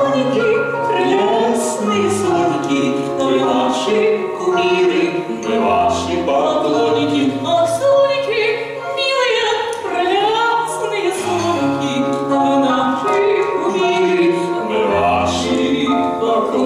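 A song sung with accompaniment on a Korg digital keyboard: steady piano chords and bass notes under a sung melody whose held notes waver in pitch.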